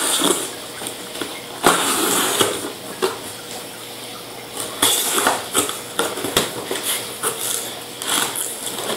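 A cardboard shipping box being opened by hand: irregular tearing, scraping and rustling of cardboard and tape, with several sharp knocks.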